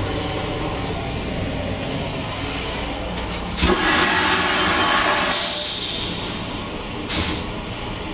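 M9 railcar restroom toilet flushing: a sudden rush about three and a half seconds in, hissing for about three seconds before fading, then a short second burst near the end. Under it runs the steady low rumble of the train car.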